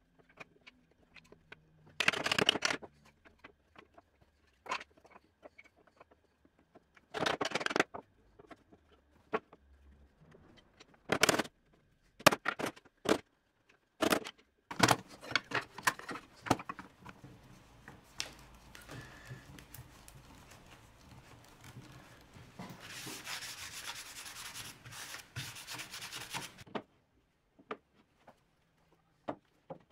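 Wooden slats and rails knocking and rubbing against each other and the workbench as a slatted frame is fitted together during a glue-up. Short scrapes and sharp knocks are scattered throughout, with a longer rubbing scrape of about four seconds near the end.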